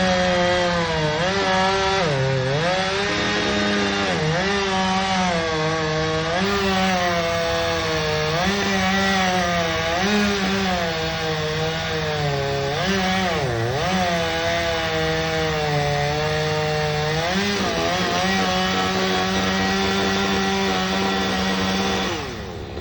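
Chainsaw engine running hard while cutting tree limbs, its pitch sagging and recovering again and again as the chain bogs in the wood. The engine drops briefly near the end.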